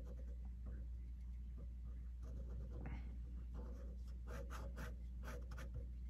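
Fine-tip ink pen scratching on paper in short, quick strokes, sparse at first and coming thick and fast from about two seconds in. A steady low hum runs underneath.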